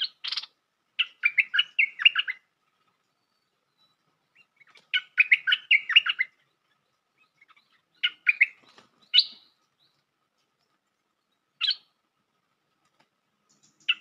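Bulbul (merbah lekir) singing short bubbly phrases of quick chirped notes, each phrase about a second long, with pauses of a few seconds between them; the song is the lure call used to draw wild birds to a caged decoy.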